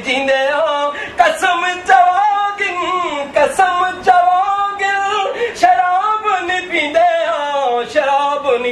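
A man singing with long held notes that waver and slide in pitch.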